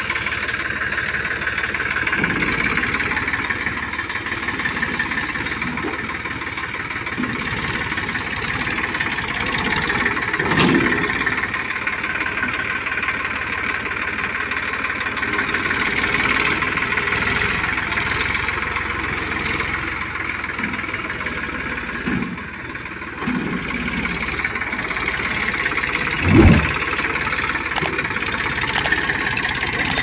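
Eicher 480 tractor's diesel engine running steadily, with two dull thumps, a smaller one about a third of the way in and a louder one near the end.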